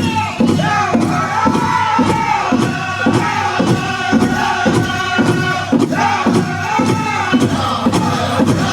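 Powwow drum group singing a crow hop song: high male voices in unison, gliding and breaking, over a big drum struck in a steady beat about twice a second.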